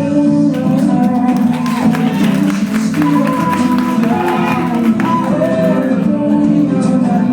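A recorded song playing loudly: a singing voice over instrumental backing.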